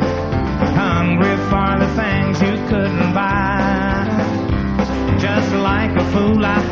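Live country band playing amplified electric guitars, drums and keyboards, with a man singing lead vocals into a handheld microphone.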